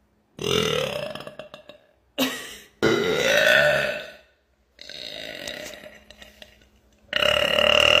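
A woman burping deliberately, five burps one after another with short gaps: long ones, a brief one about two seconds in, and a quieter fourth. The last is loud and runs past the end.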